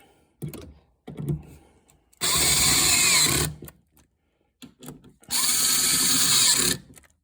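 Power drill running in two bursts of just over a second each, driving in the bolts that hold down the shifter insulator, with light knocks and clicks between the bursts.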